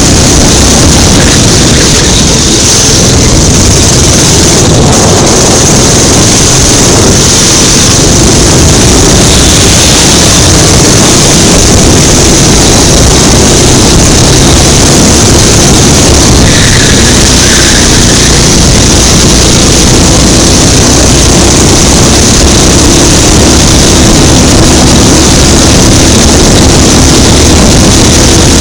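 Go-kart engine running hard around the track, heard from the kart itself, very loud and steady with a dense rushing rumble.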